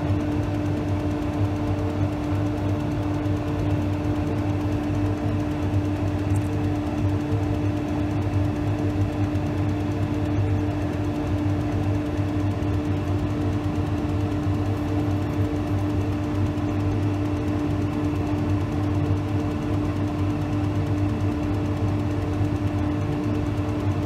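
Steady electric machine hum in a woodworking shop: a constant drone with a few fixed tones and no change in speed or load, with no tool cutting.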